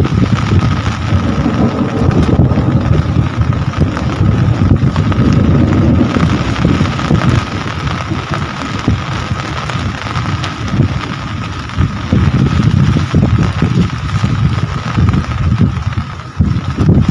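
Rain falling steadily, with wind buffeting the microphone in a low rumble that swells and dips. A thin steady tone runs underneath.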